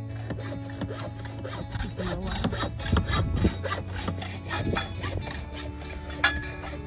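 Sawing: quick, even back-and-forth rasping strokes, several a second. About six seconds in comes a single sharp knock with a short ring.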